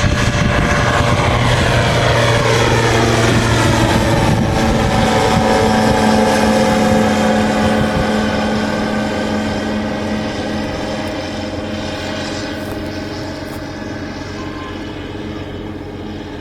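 Hughes Lightwing ultralight's engine and propeller at full takeoff power, a steady drone that slowly fades over the second half as the aircraft climbs away.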